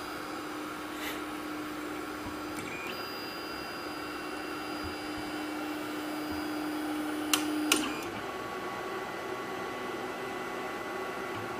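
Wanhao Duplicator 9 3D printer running: a steady fan hiss with a steady motor hum. Two sharp clicks come about seven seconds in, and the hum stops just after them.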